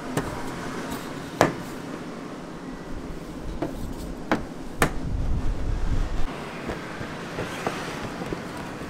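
Several sharp knocks and taps on a stainless steel work table as dough is handled and a bowl is moved, over steady outdoor background noise with a louder low rumble around the middle.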